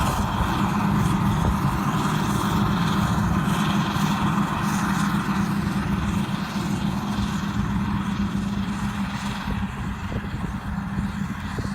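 Heavy diesel farm machinery running steadily during soybean harvest: a low, even engine drone with a strong steady hum and mechanical noise over it, easing slightly near the end.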